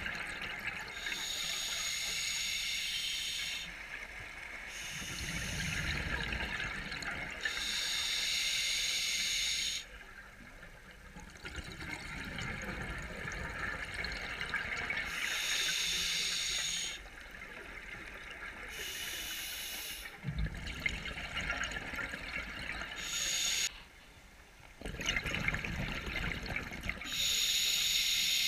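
A scuba diver breathing underwater through a regulator: about six rushes of exhaled bubbles, each lasting one to three seconds, with quieter stretches between them.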